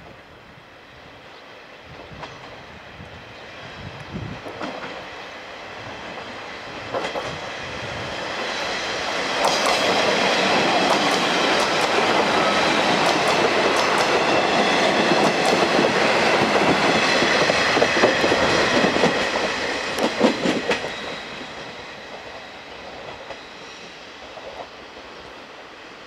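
KiHa 40-series diesel railcars approaching and passing close by. The engine and wheel noise build up, are loudest from about ten to twenty seconds in with clickety-clack of wheels over rail joints, then fade as the train draws away.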